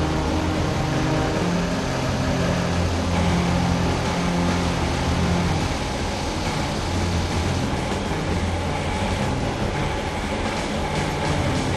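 A bushfire burning through forest: a loud, continuous roar with a deep rumble underneath.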